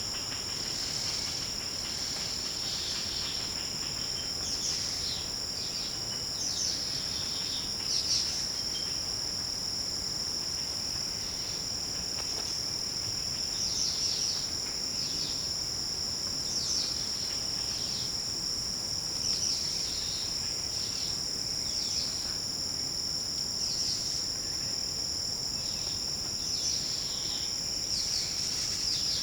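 Insect chorus: a steady, high-pitched, continuous trilling at several pitches at once, with short high chirps repeating every second or two over it.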